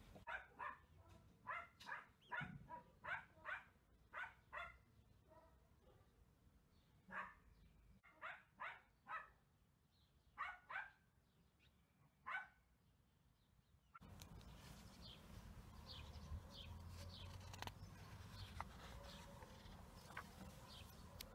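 A dog barking faintly, about fifteen short barks in loose groups, stopping about twelve seconds in.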